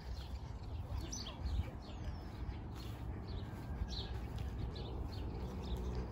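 Small birds chirping, short high calls coming every second or so, over a steady low wind rumble on the microphone.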